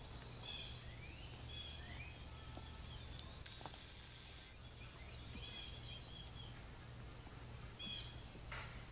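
Quiet outdoor ambience: scattered faint bird chirps and short rising calls over a steady low hum and high hiss.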